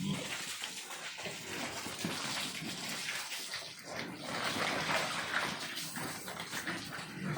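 Water splashing and running on the concrete floor of a pig pen as it is washed down.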